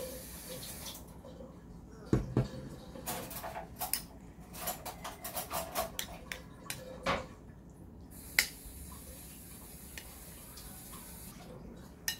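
Dishes and utensils clinking and knocking in a kitchen: a steady hiss stops about a second in, then a run of separate clinks follows, the sharpest about eight seconds in.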